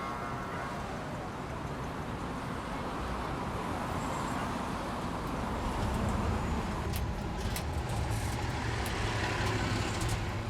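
City street traffic: a steady wash of passing vehicles. About six seconds in, a low engine rumble grows louder, with a few sharp clicks.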